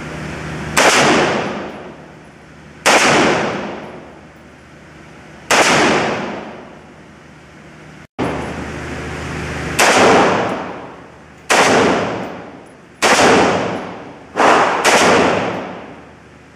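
Firearm shots fired one at a time at uneven intervals, about eight in all, each followed by a long echoing tail, with the last two close together near the end.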